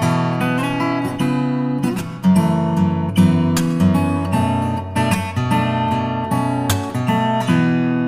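Background music: an acoustic guitar strummed and picked in a steady rhythm.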